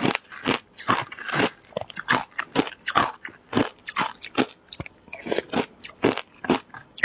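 Close-miked crunching and chewing of frozen shaved ice, with crisp bites about twice a second.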